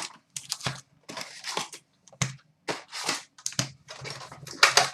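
Plastic wrap and cardboard crinkling and tearing in quick irregular rustles as a sealed hobby box of hockey cards is opened and its packs handled.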